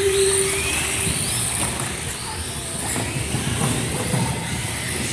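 Several radio-controlled mini off-road cars racing, their motors whining up and down in pitch as they accelerate and brake. A steady beep dies away in the first second.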